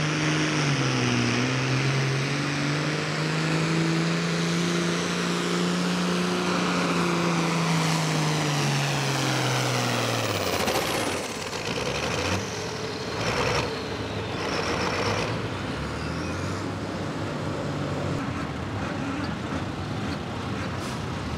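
Turbocharged 466-cubic-inch diesel of an altered farm pulling tractor at full throttle under the sled's load. Its pitch sags about a second in, holds, then winds down as the pull ends about ten seconds in. A high whistle falls away as the Borg Warner S300 turbo spools down, then come three short noisy blasts and the engine running low and quieter.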